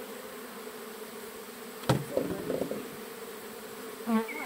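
Honeybees buzzing steadily in a mass around an open hive box of loose comb, with a sharp knock about two seconds in and a short pitched sound near the end.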